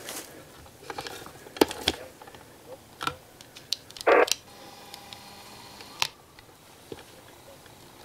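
Handling knocks and clicks against the camera and gear. A hunting hound barks once, briefly, about four seconds in.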